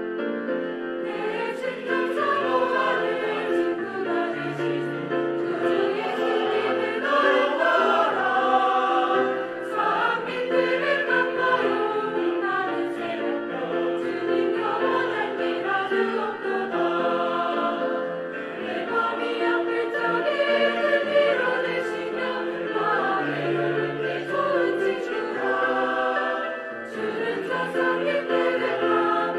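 Church choir singing a sacred anthem, with held chords throughout.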